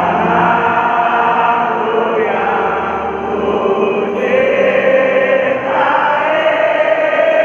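Large crowd of football supporters singing together in unison, many voices on long held notes that change pitch every second or two.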